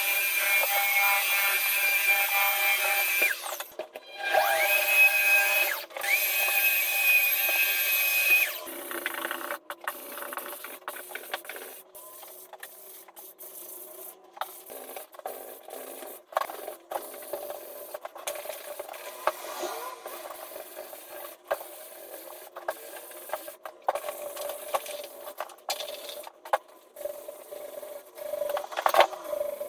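An electric wall sander whining steadily, switched off and restarted twice in the first eight seconds or so. After that comes quieter, irregular scraping and rubbing of abrasive against the wall surface, with small clicks.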